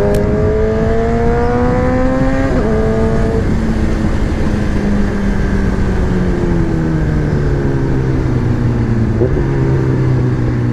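Sport motorcycle engine revving up under acceleration, then a gear change about two and a half seconds in, after which the revs fall slowly in steps as the bike slows, with steady road and wind noise underneath.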